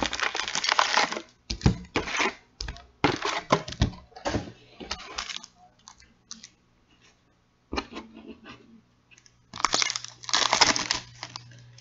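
Hockey card packaging being torn open and crinkled by hand: irregular bursts of ripping and rustling, a brief lull in the middle, then a loud burst near the end.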